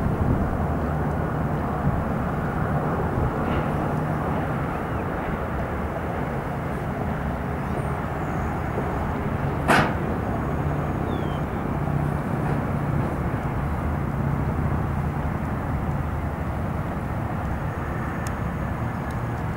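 Boeing 777-200ER airliner's jet engines, a steady noise as it comes in to land on the runway, with one sharp click about ten seconds in.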